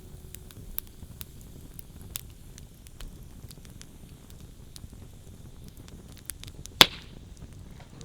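Wood fire crackling: scattered small pops and snaps at irregular intervals, with one loud crack about seven seconds in.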